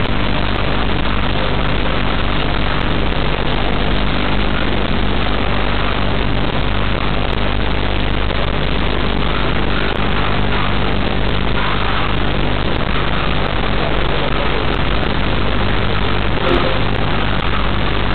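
A steady, loud mechanical drone with a low engine-like hum that runs without change.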